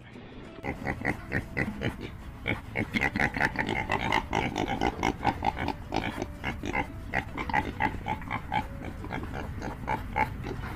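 Pigs grunting in a rapid, continuous series of short calls, several a second, starting just under a second in.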